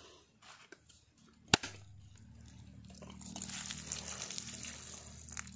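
A machete strikes a dry, mature coconut once, a single sharp knock about a second and a half in. Then the coconut water pours out of the split nut and splashes onto the ground.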